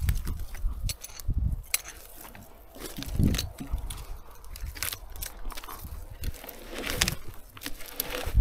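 Irregular crunches, knocks and scrapes of wood being handled and moved about, with no chainsaw running.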